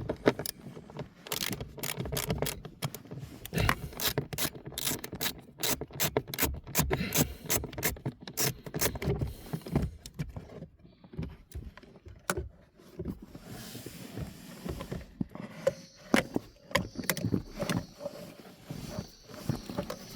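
Repeated sharp clicks, knocks and scraping of tools and hard parts being handled during a car blower motor replacement, with a brief hiss and a faint steady tone in the last few seconds.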